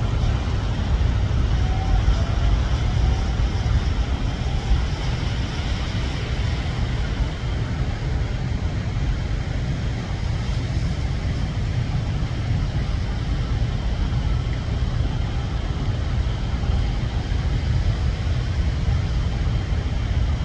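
Airbus A320's jet engines on landing, a steady rumbling roar heavy in the deep bass, with a faint whine in the first few seconds.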